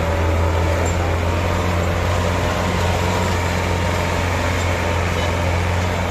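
Diesel tractor engine running at a steady, heavily loaded drone as it drags a disc plough through the soil.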